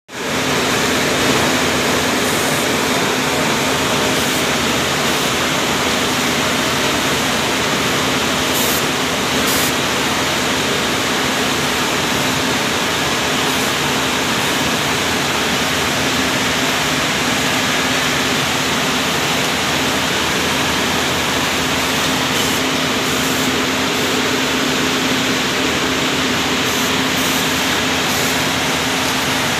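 Rows of Savio automatic cone-winding machines (autoconers) running in a textile mill: a steady loud rushing noise with a constant low hum, and a few short high ticks now and then.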